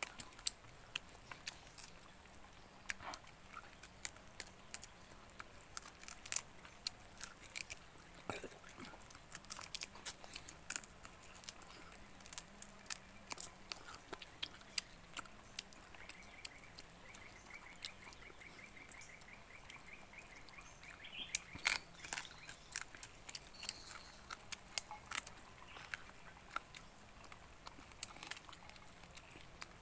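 Close-up eating sounds of people chewing and biting roasted chicken and tearing meat from the bone by hand: scattered wet clicks and smacks of mouths and fingers.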